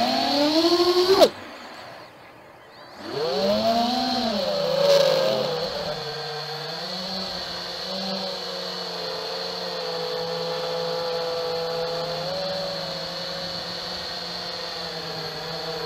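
FPV freestyle quadcopter's motors and propellers running: the pitch climbs, cuts out abruptly about a second in, then spools back up about three seconds in and holds a fairly steady whine with a constant high tone above it.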